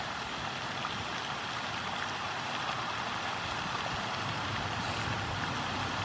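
Steady wind noise: a hiss of wind through tree leaves over a low, uneven rumble.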